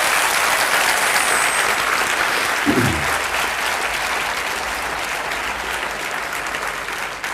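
Large audience applauding, a dense steady clapping that slowly tapers off over the last few seconds.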